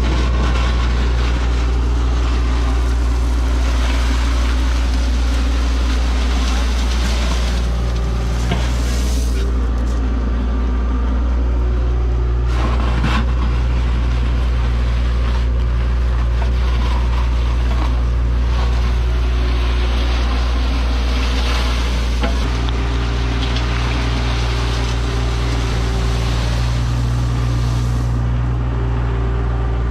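Cat 303 mini excavator's diesel engine running steadily under load as it digs, with its bucket scraping through gravel and dirt and a few clunks of the bucket and arm.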